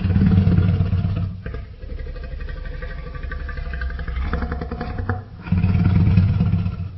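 Tyrannosaurus rex sound effect: a deep, loud roar at the start and another about five and a half seconds in, with a quieter, lower growl between them.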